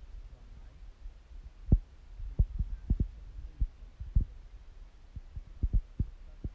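Irregular dull low thumps and knocks, about a dozen, the loudest a little under two seconds in, as raw steaks are worked onto a steel rotisserie skewer over a wooden chopping board.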